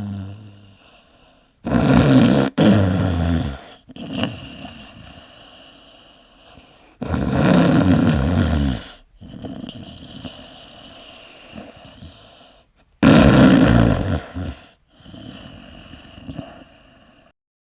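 A person snoring in their sleep: three loud snores about five to six seconds apart, each lasting about two seconds, with quieter breathing between them.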